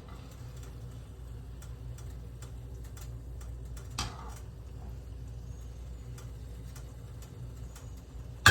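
Kitchen background: faint scattered clicks and taps over a steady low hum, with one louder tap about four seconds in.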